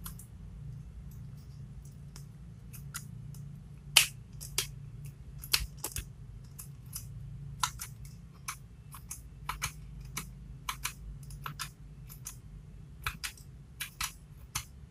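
Hands handling a battery-powered electric pepper grinder: irregular sharp plastic clicks and taps as its housing is turned and fitted. A low steady hum runs underneath.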